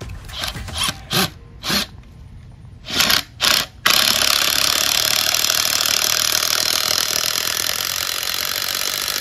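Cordless impact driver sinking a masonry screw through a metal post base bracket into a concrete slab. It gives several short bursts, then runs without a break from about four seconds in.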